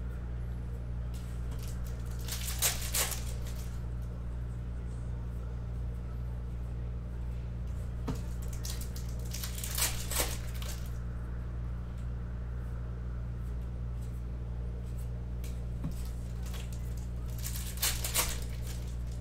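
Trading card pack wrappers being torn open, three short crinkly rips several seconds apart, over a steady low hum.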